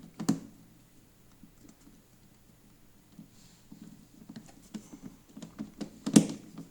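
Screwdriver driving a screw into a plastic shredder housing: small irregular clicks and scrapes, growing busier in the second half. A sharp knock comes just after the start and a louder one near the end.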